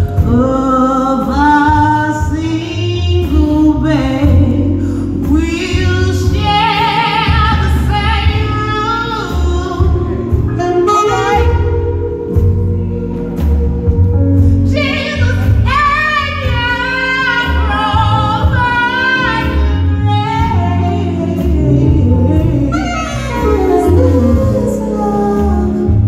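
A woman singing live into a microphone in long phrases with held and gliding notes, over a band accompaniment with a steady bass line.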